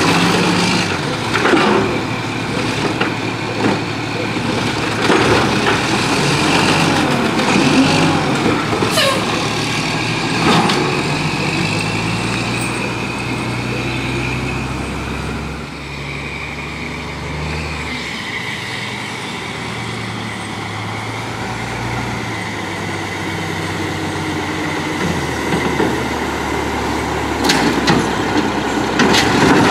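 Mack LE garbage truck's diesel engine running while its automated side-loader arm dumps a cart, with sharp knocks and clatter from the cart and arm in the first ten seconds or so. Then the engine pulls the chained-up truck away, its low pitch stepping up and down, and more knocks come near the end.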